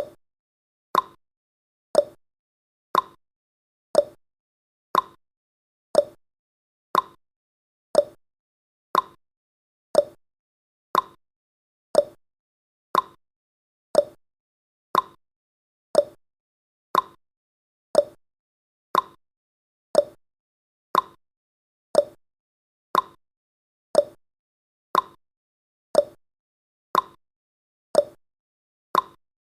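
Countdown timer's clock tick sound effect ticking once a second. The ticks alternate between a higher and a lower pitch, like a tick-tock.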